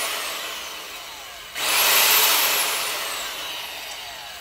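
DeWalt DW862 marble saw motor coasting down with a falling whine. About a second and a half in it is switched on again, spins up to a high whine, and is let go to coast down again. This is a brief test run after reassembly, and the saw is running normally.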